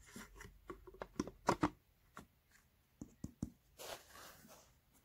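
Small clicks and taps of hands handling loudspeaker parts, with a brief rustle about four seconds in.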